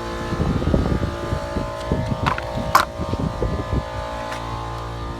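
Electric radiator fan assembly being pulled up out of the engine bay, with irregular knocks and rattles and two sharp clicks about two and a half seconds in, over a steady mechanical hum.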